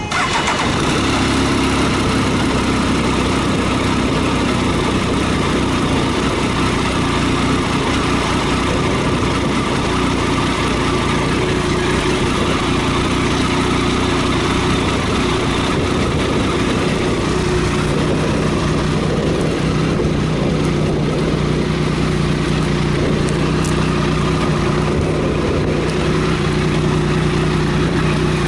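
Triumph Sprint ST 1050's three-cylinder engine catching at the start, then running at a steady speed.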